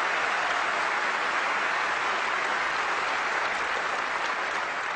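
Large audience applauding steadily, easing off slightly near the end.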